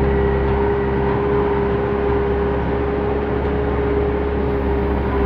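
JCB 3CX backhoe loader's four-cylinder diesel engine running steadily, heard from the cab: a low drone with one strong, unchanging whine over it.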